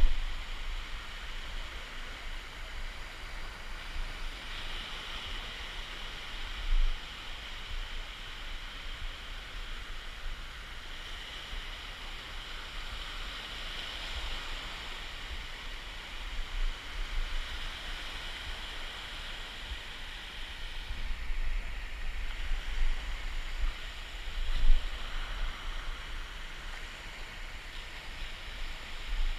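Steady outdoor hiss of water, like gentle surf, with a higher hiss that swells and fades every few seconds. A few short low bumps on the microphone stand out, the loudest about 7 and 25 seconds in.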